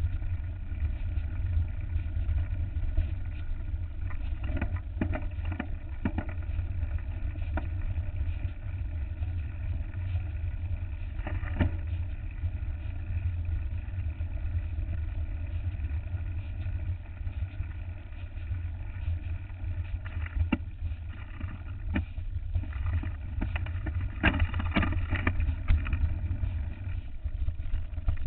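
Wind noise buffeting the microphone of a handlebar-mounted camera on a mountain bike riding over a gravel dirt track, with scattered knocks and rattles from the bike over bumps, a cluster of them about 24 seconds in.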